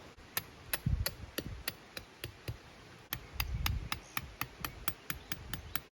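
Hammer striking repeatedly in quick, even blows, a few a second, each a sharp knock with a heavier thud under some of them.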